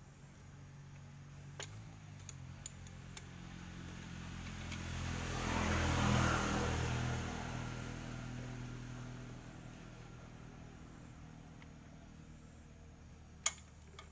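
A motor vehicle passing by: engine and tyre noise swells to a peak about six seconds in, then fades away, over a low steady hum. A sharp click near the end.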